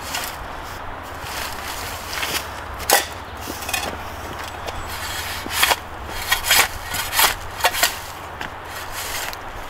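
Flat-bladed shovel digging into soil: sharp scrapes and strikes of the blade in the dirt, one at about three seconds in and several in quick succession in the second half.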